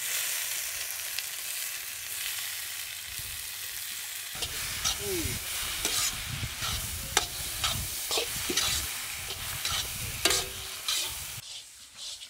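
Spiced onion masala frying in oil in a kadai: a loud sizzle that starts suddenly at the start and is stirred, with clicks and scrapes against the pan from about four seconds in. The sizzle dies away shortly before the end.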